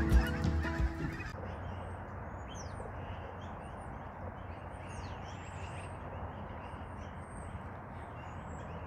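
A bunch of yellow-billed magpies calling from the treetops, many short high calls scattered over a faint steady hiss. It opens with the tail of a louder passage with steady tones that cuts off about a second in.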